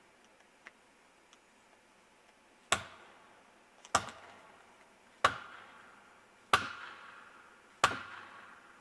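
Five evenly spaced axe blows, about one every 1.3 seconds, each followed by a brief ringing echo.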